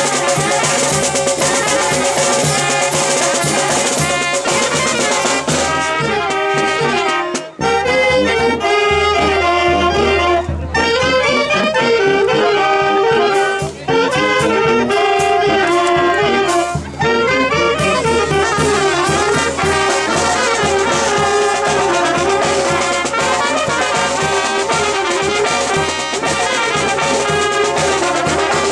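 Brass band of trumpets, trombones and tuba playing a lively tune, with a bass drum, cymbal and snare drum keeping the beat.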